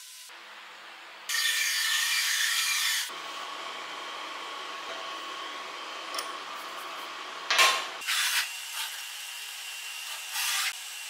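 Hand-tool work at the spindle of a CNC router. A rough scraping, rubbing burst about a second in lasts nearly two seconds, followed by a steady hiss. About two-thirds through comes a sharp metallic clank and a few smaller knocks as two wrenches work the spindle's collet nut during a bit change.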